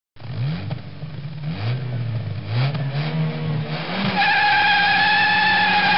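A car engine revving hard through several gear changes, its pitch climbing and dropping back with each shift. About four seconds in, a loud, steady tyre squeal takes over.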